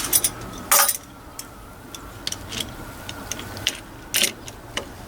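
Scattered small metallic clicks and clinks from tools and parts at the exhaust cam sprocket and timing chain of a Honda CB400 engine as the sprocket is turned, with louder clinks about a second in and about four seconds in.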